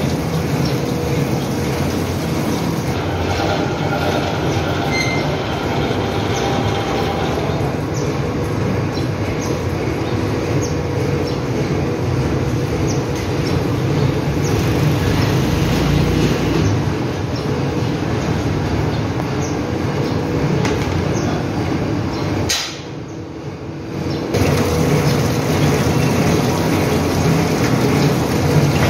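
Steady mechanical noise of a PVC pipe extrusion line running, with a constant hum underneath. It drops away briefly about three-quarters of the way through, then resumes.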